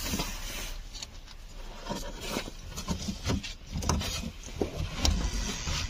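Hand-work noises during a car repair: irregular clicks, taps and rubbing, with no engine running.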